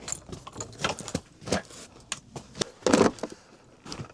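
Irregular light knocks and clatter of objects being handled, with a louder knock about three seconds in.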